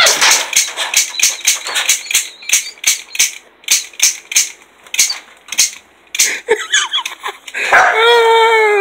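Orange toy cap gun firing rapidly, sharp shots at about four a second for some six seconds. Near the end, a long high cry that falls slightly in pitch.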